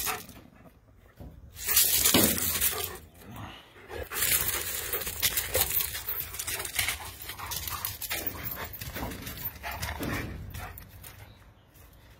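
German Shepherd puppies making vocal sounds amid sharp clattering knocks and scuffling, loudest about two seconds in and fading near the end.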